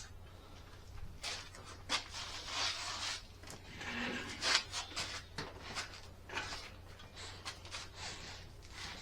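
Irregular scraping and rubbing handling noises, a few short ones after another, over a faint steady low hum.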